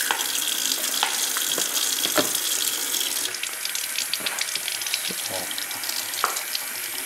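Kitchen tap running onto savoy cabbage in a sieve as the leaves are rinsed of sand, with a few small knocks and clicks of handling. The water noise drops to a softer flow about three seconds in.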